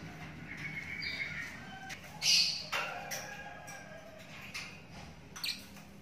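A 24-day-old lovebird chick calling in a few short, harsh chirps, the loudest about two seconds in and a brief one near the end, over a low steady hum.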